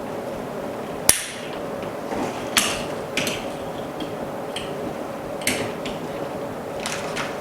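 Small hand tools clicking and tapping on a phone-repair workbench. There is one sharp click about a second in and a handful of short taps and scrapes after it, over a faint steady machine hum.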